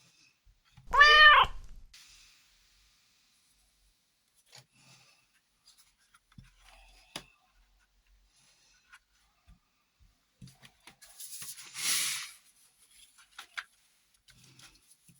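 A cat gives one short meow about a second in, its pitch rising then falling. Faint clicks and handling of pencils and packaging follow, with a louder rustle or scrape around twelve seconds.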